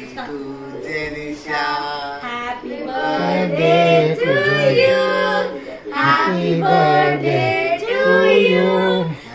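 A small group of voices singing a birthday song together while the cake is cut, several people in unison with the notes held and sliding between phrases.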